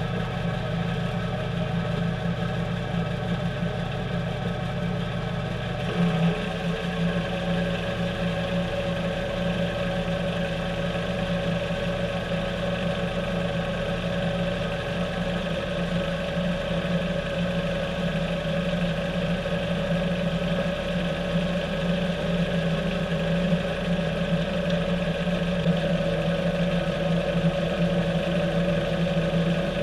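Heavy wrecker's diesel engine running steadily to power its winch as it drags a crashed dump truck off a bank. The engine note changes about six seconds in, then holds steady.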